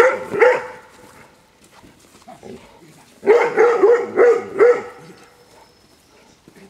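Dog barking in excitement at a prey toy being waved at it: two barks at the start, then a quick run of about five barks around three to four seconds in.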